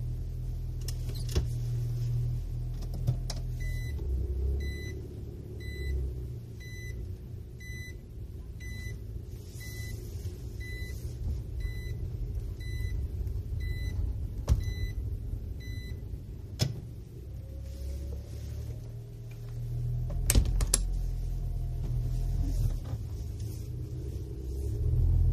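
Nissan NV200 van's engine idling and pulling away, heard from inside the cab. Over it, a cabin warning beeper sounds about once a second for around eleven beeps and then stops, fitting the in-cabin reverse-gear warning while the van backs out of its space. There are a few sharp clicks.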